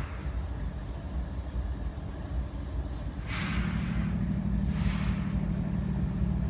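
Diesel locomotive engine running with a steady low rumble; about three seconds in its note steps up into a louder steady hum as it loads. Two short hisses of air come through, one as the hum starts and one about a second and a half later.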